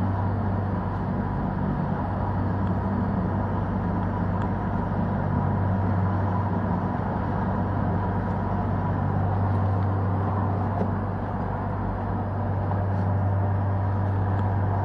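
Steady low drone of a moving vehicle, an even hum with a noise bed that holds constant throughout.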